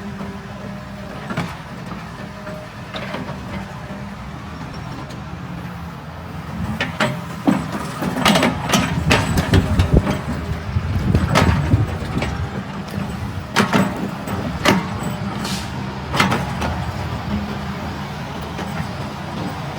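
Kobelco excavator's diesel engine running steadily, with a cluster of sharp clanks and knocks from about seven to sixteen seconds in.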